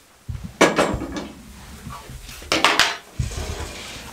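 Aluminium cooking pot and kitchenware clattering as they are handled and set down, two sharp clatters about two seconds apart.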